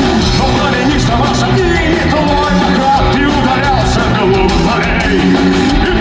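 Live rock band playing loudly, with drums and guitars.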